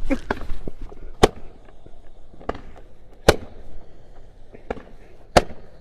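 Firecrackers going off one at a time: about six sharp, single bangs spread over several seconds, the loudest about a second in, in the middle and near the end.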